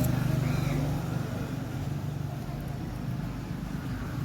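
A motor vehicle engine running, its low hum loudest in the first second, then easing to a steadier, quieter traffic rumble.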